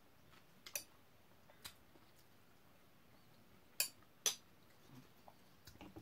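A few light, sharp clicks of tableware, a metal spoon and ceramic bowl knocking together while someone eats, with the two loudest clicks about half a second apart just past the middle.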